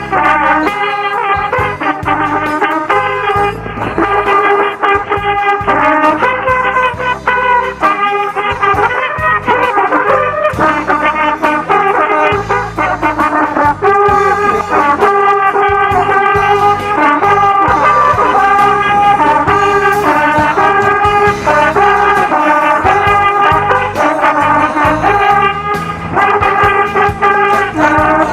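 Instrumental break of a song, with brass (trumpets and trombones) playing held melodic notes over a band accompaniment.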